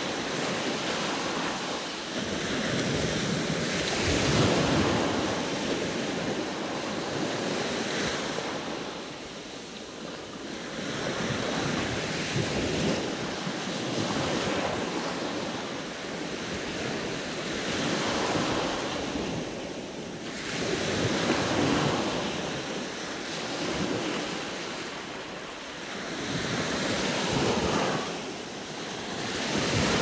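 Sea waves washing onto the shore: a steady surf noise that swells and eases as each wave comes in, every few seconds.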